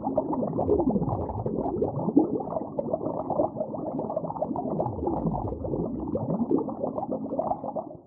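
Muffled underwater ambience: a dense, churning rush with slow tones that swoop down and back up twice. It cuts off abruptly near the end.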